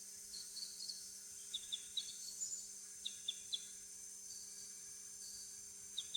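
Tropical rainforest ambience: a steady high-pitched drone of insects with short bird chirps in small clusters of two or three. A faint low hum runs underneath.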